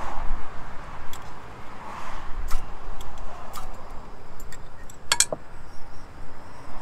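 Scattered light clicks and clinks from handling a portable gas camp stove and metal cooking gear, with a louder cluster of clinks about five seconds in.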